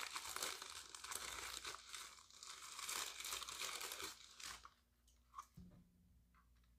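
Thin plastic wrapping bag crinkling and rustling as hands pull it off a device, for about four and a half seconds; then it goes much quieter, with one small click.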